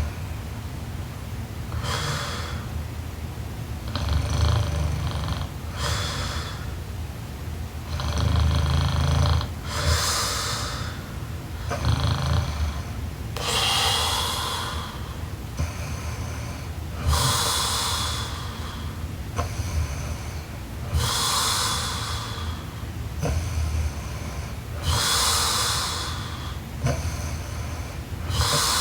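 A young woman snoring in her sleep: low rumbling snores alternating with airy breaths, about one breath every four seconds. The rumble is strongest in the first half and later gives way to mostly breathy exhales.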